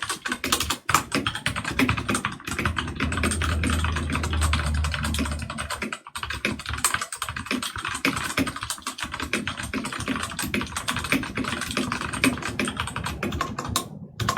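Fast typing on a Drevo Calibur V2 mechanical keyboard with its stock Outemu Red linear switches: a dense, rapid clatter of keystrokes with a couple of brief pauses.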